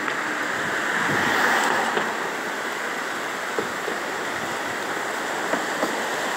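River water rushing steadily below a dam, a constant even hiss that swells slightly about a second in.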